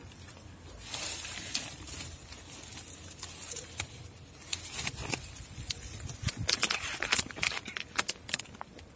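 Plastic cat-food bag crinkling as it is handled and tipped, with dry kibble rattling. It makes a dense run of sharp clicks and crackles that grows busier and louder in the second half.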